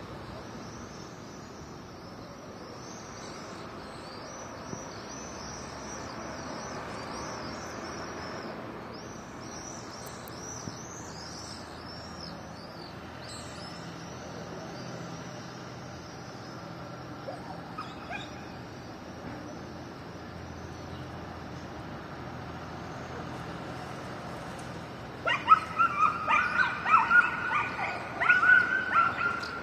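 Steady outdoor background noise with faint high chirps. About 25 seconds in, loud, repeated high yelps and barks start as stray dogs chase a cat.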